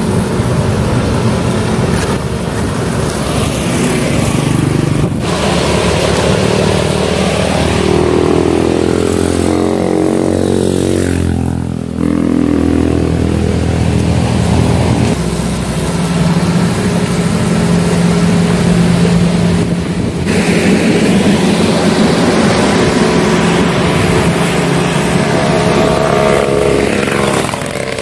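Small motorcycles riding past on the road one after another, their engine notes rising and falling as each goes by.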